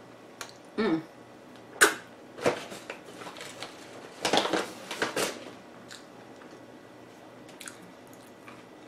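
Eating sounds: a soft bean taco being chewed, with a few sharp clicks in the first couple of seconds, then a chip bag rustling briefly about four seconds in as a tortilla chip is taken out.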